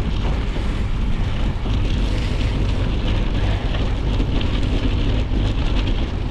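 Steady wind buffeting the microphone while a gravel bike rolls along, its tyres crunching and hissing over a snowy dirt road.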